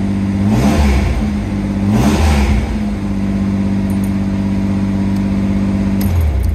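Pontiac Fiero V6 engine idling steadily, revved briefly twice in the first few seconds, then switched off near the end.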